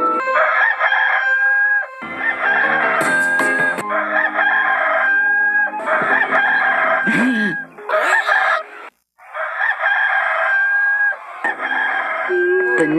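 Rooster crowing: the Hollywood Edge stock rooster crow sound effect, played over and over, about seven crows back to back, each ending in a held high note.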